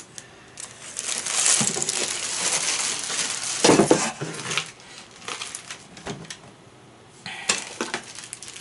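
Clear plastic parts bags crinkling and rustling as hands lift and sort them in a cardboard kit box, with a single louder knock about four seconds in and scattered clicks and rustles afterwards.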